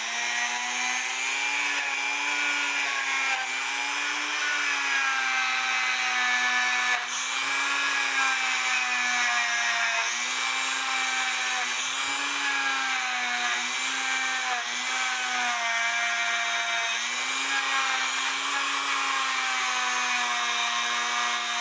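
Dremel rotary tool fitted with a wire brush bit running steadily while wire-brushing a cuckoo clock movement, its motor whine dipping slightly in pitch every few seconds, with a scratchy brushing hiss.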